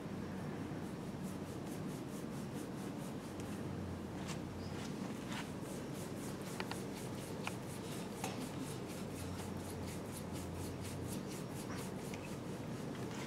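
Hands rubbing over a client's skin during a back massage, in a fast, even rhythm of strokes with a few small ticks.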